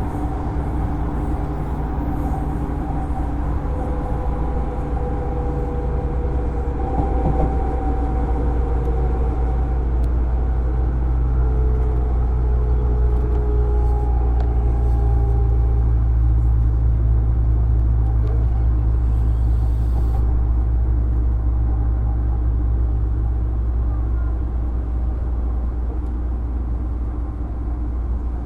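JR East 205-series electric train running at speed, heard from inside a motor car fitted with MT61 external-fan traction motors. A steady, heavy rumble of wheels on rail runs throughout, with faint motor and gear whine tones that drift a little in pitch and fade out about halfway through.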